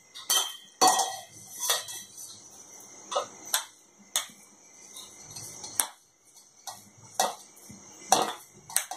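A steel spoon scraping and knocking against a stainless-steel mixer-grinder jar and bowl while ground soya chunks are scooped out: about a dozen sharp metal clinks at uneven intervals.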